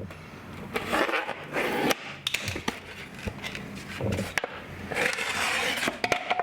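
Utility knife scoring a piece of drywall in a few short scraping strokes, with sharp knocks in between as the board and tools are handled.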